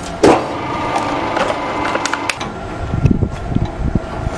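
TOPDA PC250 plastic crusher running with a steady hum, with a loud knock just after the start and scattered sharp cracks, clicks and low knocks.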